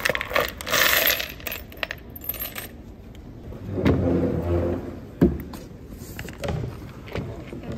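A bunch of steel sheet-metal screws released from a magnet tool, clattering into a plywood sorting tray, then clinking as they are handled in the pile. A single sharp knock a little after five seconds in.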